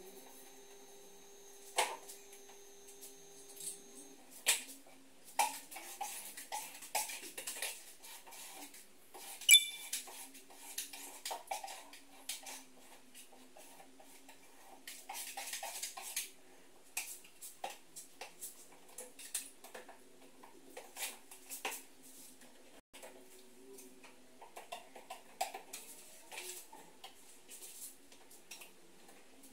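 Hand-tool work on a plasterboard structure: scattered taps, scrapes and metallic clinks, with two stretches of rasping scraping lasting a few seconds each and one sharp knock about ten seconds in. A faint steady hum stops about four seconds in.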